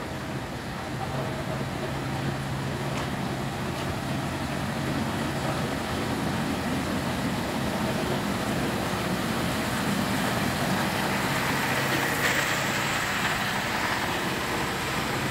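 Ex-JR Hokkaido KiHa 183 series diesel railcar moving slowly past along the platform, its engine hum growing steadily louder. A hiss comes up about twelve seconds in.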